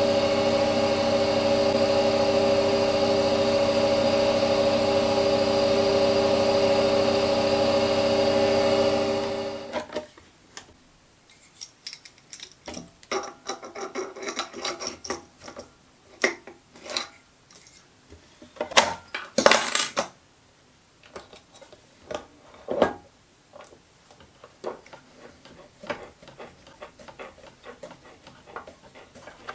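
Small metal lathe running at a steady speed with a steady motor whine for about ten seconds, then shutting down. After that come scattered clicks, knocks and rubbing of metal tools and parts being handled while a thread is cut by hand.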